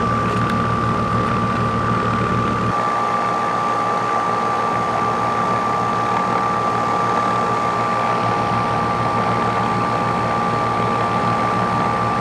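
Outdoor air-conditioning condensing unit running: a steady machine hum with a clear, even high tone over a lower drone. The deepest rumble drops away about three seconds in.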